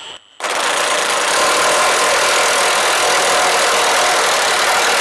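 Milwaukee Fuel brushless cordless impact wrench hammering steadily as it runs a lock nut down on a trailer axle mounting bolt, starting about half a second in.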